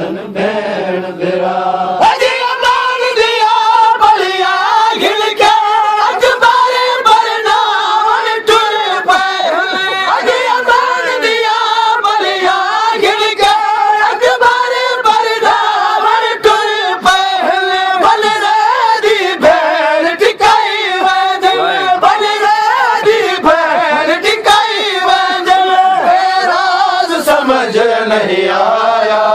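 Crowd of male mourners chanting a noha, a Shia lament, in chorus. From about two seconds in, a steady run of sharp beats of matam (chest-beating) keeps time under the chant.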